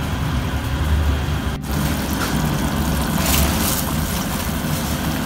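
Pot of water at a rolling boil on a gas burner, a steady bubbling rumble with hiss, as dried wheat noodles are lowered in; the sound breaks off briefly about a second and a half in.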